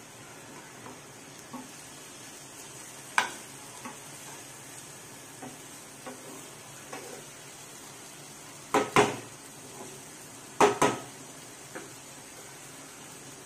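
Metal slotted spatula knocking and scraping against a nonstick frying pan while turning fried egg halves in dry masala, over a steady sizzle. There are light taps throughout, a sharp clink about three seconds in, and two pairs of louder knocks around nine and eleven seconds in.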